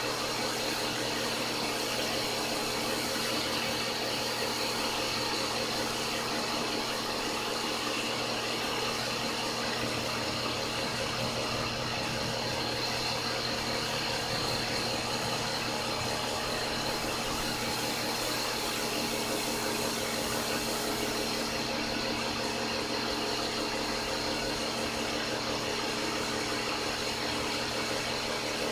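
The pump of a homemade foaming car-wash system running steadily, a constant motor hum with a water hiss over it.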